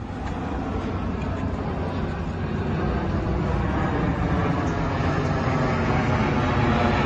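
An engine running steadily with a low pitched drone, growing gradually louder.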